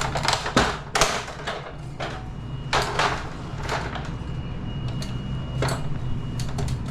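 A series of irregular knocks and clatters, some sharp, over a steady low hum, with a faint thin high tone held for a second or so past the middle.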